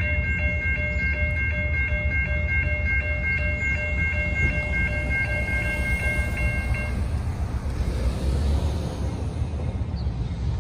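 CSX freight train's diesel locomotives rumbling as they approach on street-running track. A bell rings rapidly over the rumble and stops about seven seconds in.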